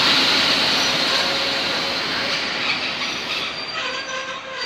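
Railway passenger coaches rolling past close by, wheels running on the rails with a steady rushing noise that slowly fades as the train draws away. Thin squealing tones from the wheels come through in the second half.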